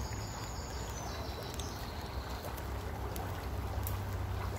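Steady rush of flowing river water, with a few faint clicks from hot coals being shifted with wooden tongs.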